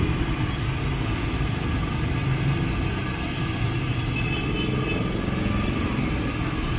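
Steady street traffic noise, with car and motorbike engines running on the road.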